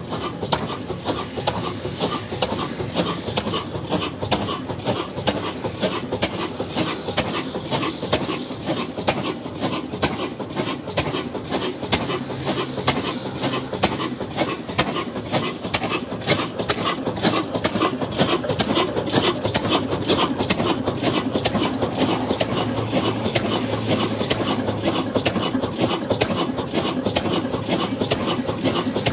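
Old 20 hp stationary diesel engine running steadily, with an even, rapid mechanical clatter.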